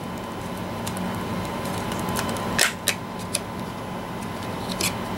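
Clear plastic clamshell packaging of a CPU being pried open: a few short, sharp plastic clicks and crackles over a steady background hiss.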